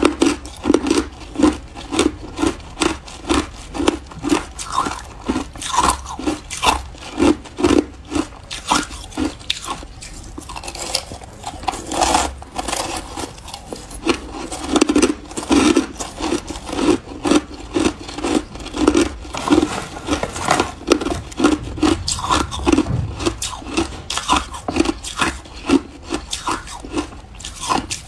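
Close-miked chewing of a mouthful of shaved ice, crunching in a steady rhythm of about two bites a second.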